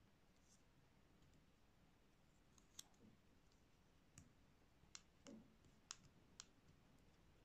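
Faint, scattered clicks and light taps as fingers handle a DJI drone battery's plastic casing and press the wire clips onto its terminal pins, about six in the middle of the stretch, against near silence.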